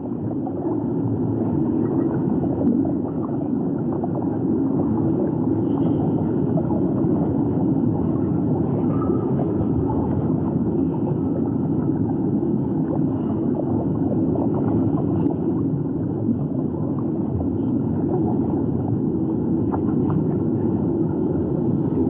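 Steady, muffled underwater rumble of moving water, with scattered faint crackles.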